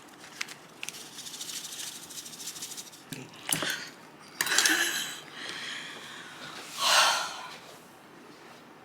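Someone slurping cold soybean-broth noodles, in several short hissy slurps, the loudest about two-thirds of the way through.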